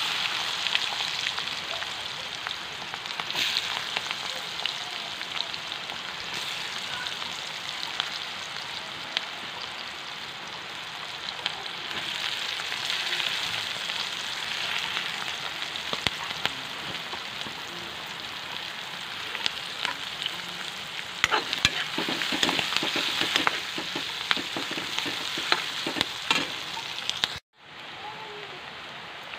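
Chopped onion, cabbage and carrot sizzling in hot oil in a kadhai, a steady frying hiss. A steel spoon stirs and scrapes the pan with many small clinks, busiest in the last few seconds before the sound cuts off suddenly.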